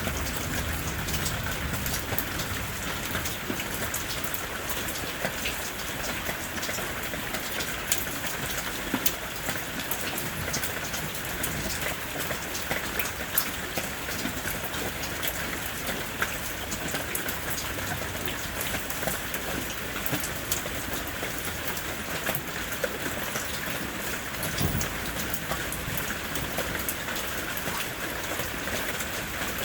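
Steady rain falling, a dense even hiss with many individual drops ticking sharply on a surface. A brief low rumble swells about 25 seconds in.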